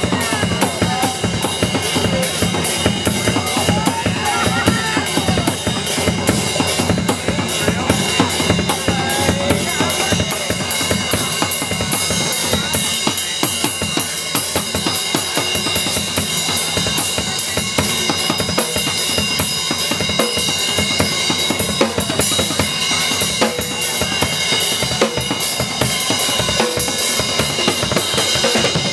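Acoustic drum kit played live: fast, dense hits on snare, toms and bass drum.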